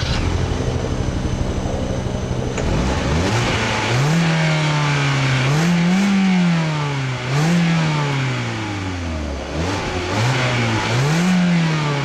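2014 Hyundai Accent's 1.6-litre direct-injection four-cylinder heard at the tailpipe with the car standing still. It idles for a couple of seconds, then is revved up and let fall back several times in a row.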